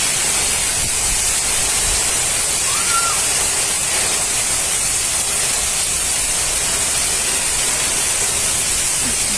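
Heavy rain falling steadily, a continuous even hiss, with some uneven low rumble of wind. A short chirp sounds about three seconds in.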